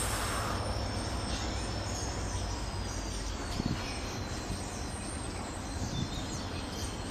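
The last wagon of a diesel-hauled rail-test train rolling away on the track, the steady running noise of its wheels on the rails slowly fading, with a faint thin high tone dropping slightly in pitch.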